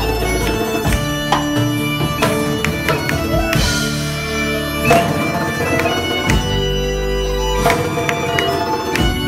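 Live band playing an upbeat folk tune, a bagpipe carrying the melody over fiddles, button accordion, acoustic guitars and hand percussion.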